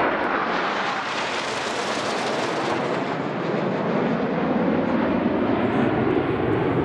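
A formation of BAE Hawk T1 jet trainers with Adour turbofans passing overhead: a steady jet roar. Its high hiss is brightest about a second or two in, then eases as a deeper rumble builds.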